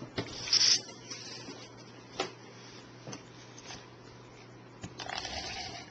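Cardstock being handled: short paper rustles near the start and near the end, with a few light clicks and taps between, over a steady low electrical hum.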